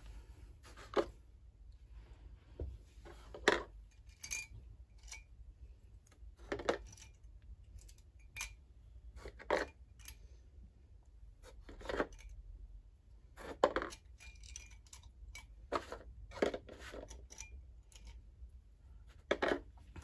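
Plastic Lego minifigures being set down one by one into the compartments of a white moulded tray: a string of light taps and small clatters, a second or two apart.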